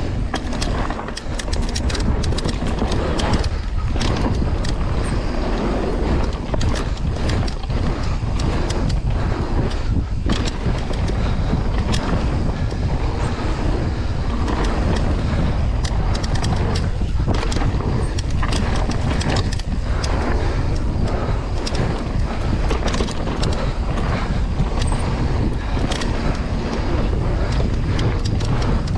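A mountain bike riding a dirt trail: a steady rumble of wind on the camera microphone and tyres on dirt, with frequent sharp clicks and rattles from the bike over the bumps.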